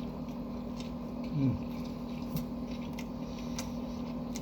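A brief, low, falling vocal 'mm' about a second and a half in, over a steady low hum in the room.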